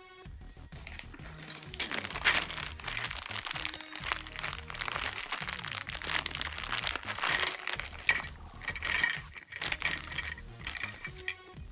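Clear plastic bag crinkling and rustling as hands open it and pull out the plastic pieces, starting about two seconds in, over steady background music.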